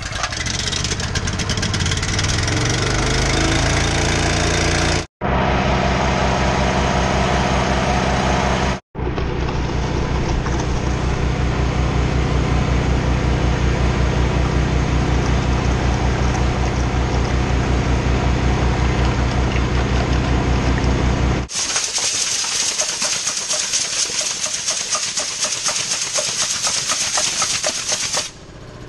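Single-cylinder Honda GX390 engine driving a truck-mounted vacuum pump. It catches from a pull start and speeds up over the first few seconds, then runs steadily while the pump pulls vacuum on the tank and draws oil up the suction hose. The sound breaks off briefly twice, about five and nine seconds in. Near the end the engine gives way to a loud steady hiss of compressed air escaping from a patched air hose on a shop air compressor, which stops suddenly.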